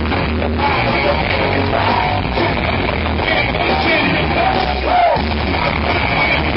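Live band playing through a PA, with singing over a steady pulsing bass beat, recorded from within the crowd.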